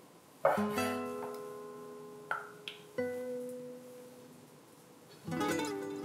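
Background music on a plucked string instrument: slow chords struck about half a second in, at about three seconds and again near the end, each ringing out and fading.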